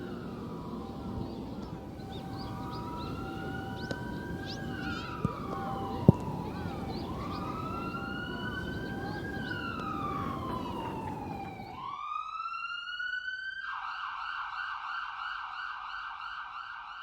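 Emergency-vehicle siren wailing, slowly rising and falling in pitch every few seconds over steady background noise, with a sharp knock about six seconds in. Near the end the background noise drops away and the siren switches to a fast warbling yelp.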